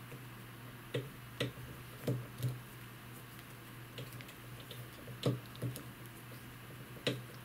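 Stiff fluorocarbon fishing line clicking and rubbing between fingers as its strands are crossed over one another in a braid: about seven irregular sharp clicks, over a steady low hum.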